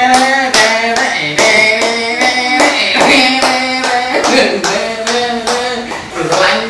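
Hands clapping in a steady beat, about two to three claps a second, with a tune of held notes going along with it.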